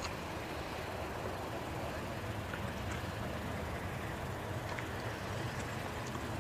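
Steady low rumble of a Boeing 747's four jet engines running at taxi power as the aircraft rolls along the taxiway.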